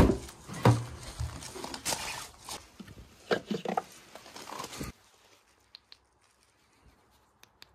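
Handling noise at a VW Transporter van: a sharp knock, then a string of knocks, rustles and bumps as the door and a flashlight are handled, cutting off abruptly to near silence about five seconds in.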